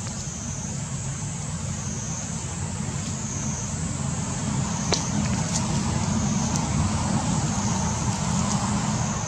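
Steady low rumble, like an engine running, under a high buzzing that swells and fades about every second and a half; a few faint clicks midway.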